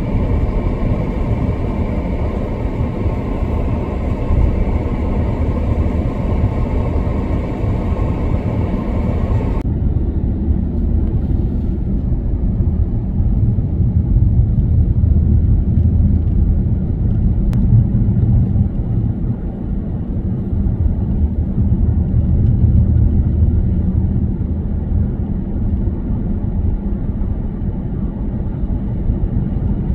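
Steady low rumble of a car driving along a snow-covered road, its engine and tyre noise heard as a continuous drone. About ten seconds in the sound turns duller, losing its higher hiss while the rumble carries on.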